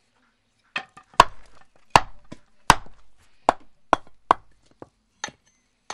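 Wooden mallet knocking on the back of a splitting blade set on the end of a log, riving off a thin wooden roof shingle (hardama): about ten sharp knocks, roughly two a second, the last few weaker.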